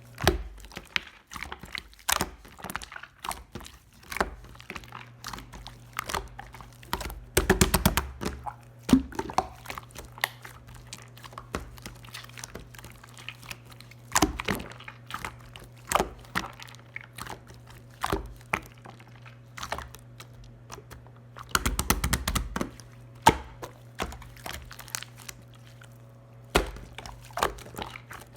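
Clear slime being squeezed and stretched by hand, giving irregular sticky clicks and snaps, with two quick runs of rapid popping as air pockets burst, one about eight seconds in and another about twenty-two seconds in.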